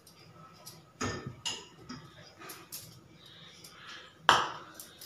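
Metal kadhai and utensils knocking and clinking as the emptied pan is tapped out over a plate and set back on the gas stove: a few light knocks and scrapes, then one louder clank about four seconds in.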